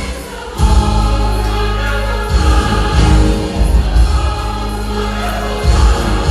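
Choral Christmas music: a choir singing over a full accompaniment with sustained bass notes.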